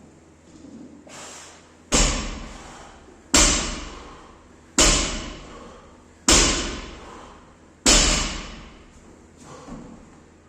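Loaded barbell with bumper plates dropped to the floor five times, about every one and a half seconds, each heavy thud dying away over about a second.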